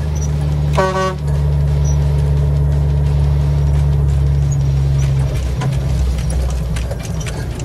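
Semi truck's Caterpillar 3406 diesel engine running with a steady low drone in the cab, easing off about two-thirds of the way through. A short horn honk sounds about a second in.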